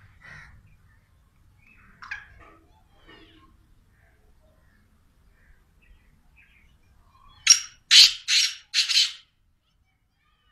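Black francolin giving its harsh, grating call: four loud notes in quick succession about seven and a half seconds in, after a few faint chirps.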